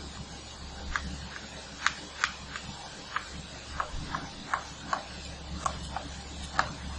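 Chalk tapping on a blackboard as figures are written: about a dozen short, sharp clicks at irregular intervals.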